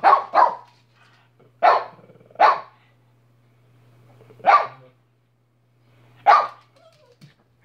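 Small Chihuahua-type dog barking: about six sharp single barks, a second or two apart, with the gaps getting longer toward the end.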